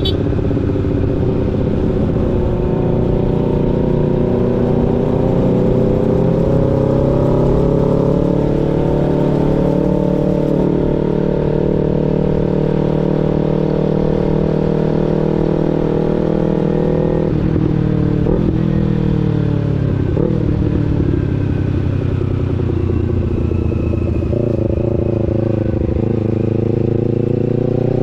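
250 cc parallel-twin sport motorcycle engine pulling along the road at speed, with wind rumble on the microphone. Its pitch climbs over the first several seconds, holds steady, drops sharply about two-thirds of the way through as the rider shifts or rolls off, then climbs again near the end.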